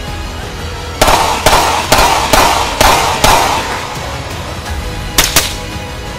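Handgun fired in a string of six shots, about two a second, then a quick pair of shots about five seconds in, over background music.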